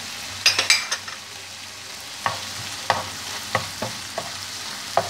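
A wooden spoon stirs a filling of shrimp, chicken, mushrooms and sliced olives frying in a pan, over a steady sizzle. A quick clatter of sharp knocks comes about half a second in, the loudest part, followed by single knocks of the spoon against the pan every half second to second.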